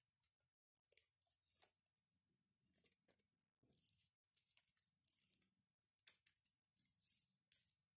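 Faint, intermittent rustling and crinkling of a thin plastic punched sheet protector and paper strips being handled and slid into the sleeve, with a few light taps.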